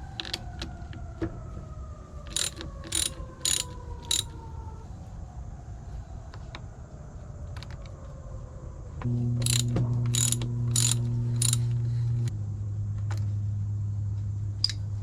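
An electric starter on a weak battery trying to turn the engine over, with no start: a run of sharp clicks, then about nine seconds in a steady hum that drops in pitch about three seconds later. The battery is too weak to crank it.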